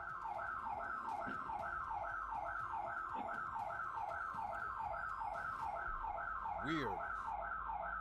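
Electronic alarm siren sounding a rapid, repeating falling tone, about three sweeps a second.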